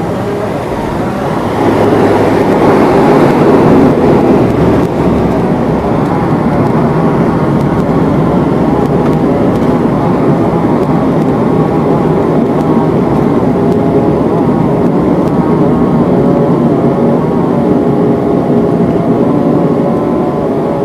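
Propeller airliner rolling along the runway after touchdown, heard from inside the cabin: a loud, steady noise of engines, propellers and tyres. It swells louder about two seconds in for a few seconds, then holds steady with faint engine tones coming through.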